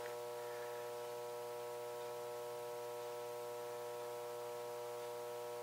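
A steady electrical hum made of several held tones, unchanging throughout, with no clicks or other events.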